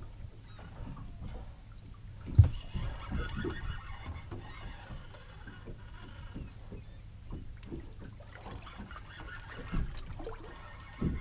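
Steady low rumble of wind and water around a small sea-fishing boat, with light knocks and creaks from the rod and reel as a fish is pumped up, and one sharp knock about two and a half seconds in.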